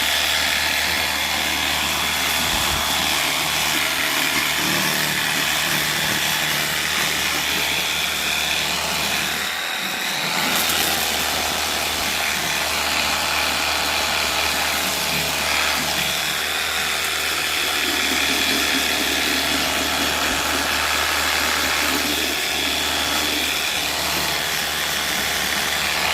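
Pressure washer running steadily as it blasts grime off a surface, its motor hum and spray continuous, easing briefly about ten seconds in.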